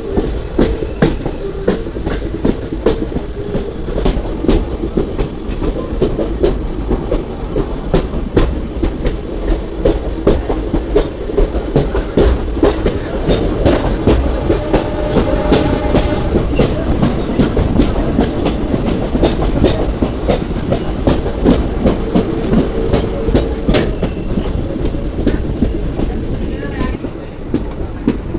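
Passenger train running on the rails: a steady rumble with rapid clickety-clack of the coach wheels over rail joints, easing off near the end.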